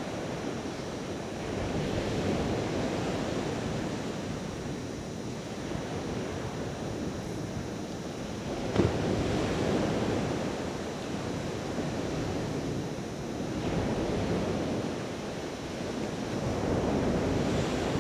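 Surf washing onto a sandy beach with wind buffeting the microphone, the noise swelling and easing every few seconds as waves come in. A single sharp knock about nine seconds in.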